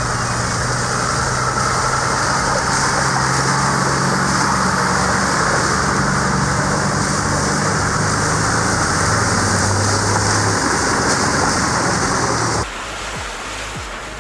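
Land Rover Discovery engine running steadily as it drives through a shallow rocky river, over the constant rush of flowing water. Both drop away suddenly near the end.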